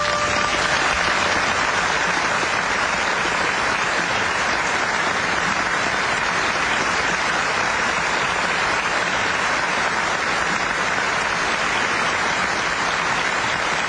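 Studio audience applauding, a steady sustained clapping.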